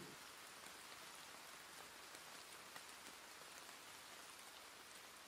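Faint, steady rain: an even hiss with a few scattered drop taps.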